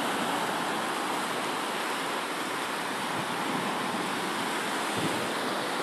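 Surf washing onto a beach: a steady, even rush of waves.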